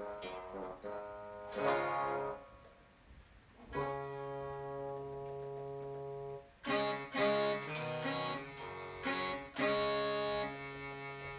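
Synthesized instrument notes from a MidiPlus MIDI sound module, triggered from an electric guitar through a Fishman TriplePlay MIDI pickup. A short run of notes comes first, then one note held for a few seconds, then a phrase of several notes.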